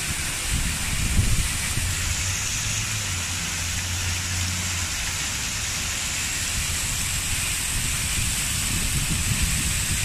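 Many vertical water jets of a plaza fountain spraying up and splashing down into stone basins: a steady hiss of falling water, with a low rumble underneath.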